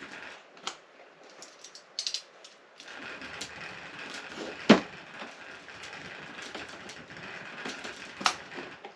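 Box cutter working at the sealed cardboard box: scraping and slicing with scattered small clicks, and one sharp crack about 4.7 seconds in, another near the end.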